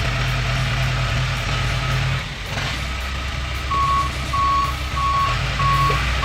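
A heavy vehicle's engine running steadily; a little past halfway its reversing alarm starts beeping evenly, about three beeps every two seconds.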